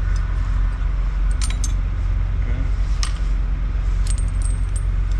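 Steel snow-chain links clinking and jangling as the chains are handled, a few separate metallic clinks over a steady low rumble.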